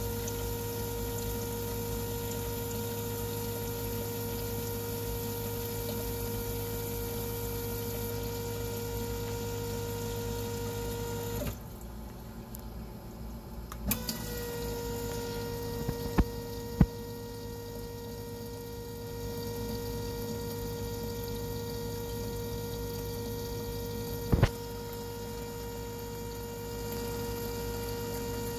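Fuel injector test bench's pump running with a steady hum, holding the injectors under pressure for a leak-down test. The hum drops away for a couple of seconds about halfway through, then resumes, and a few sharp clicks follow.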